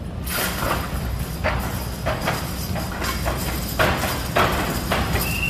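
A team of draft horses lunging into the hitch and dragging a weighted sled across a dirt arena floor: a steady scraping rush with irregular heavy hoof thuds. A high steady note comes in near the end.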